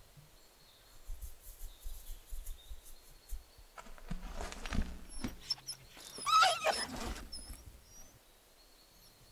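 Small shaggy dog giving a short, wavering whimper about six seconds in, after soft rustling and handling noises as it is petted.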